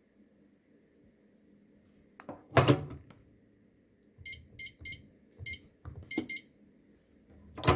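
Electronic safe keypad beeping as a code is keyed in: six short beeps in quick succession, each with the soft thump of a key press. A louder knock or handling clatter comes about two and a half seconds in, and another near the end.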